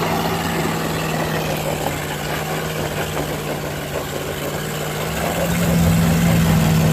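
Land Rover Discovery 2's engine held at steady revs under load while its wheels spin on loose rock, stuck on a ledge; a little louder near the end.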